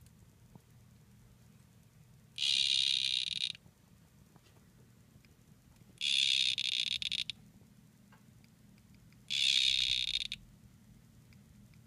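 Male poison dart frog calling: three high calls, each about a second long, one every three and a half seconds.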